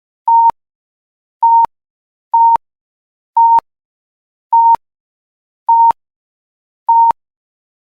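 Fire alarm sounding: seven short beeps on one steady tone, about a second apart, each ending in a click.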